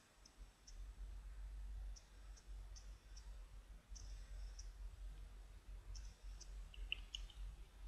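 Faint, irregular small clicks, about a dozen, over a low steady hum.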